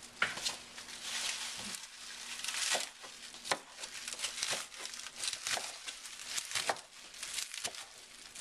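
Bunch of fresh curly kale rustling and crinkling as hands grip and handle its leaves, with irregular sharp crackles.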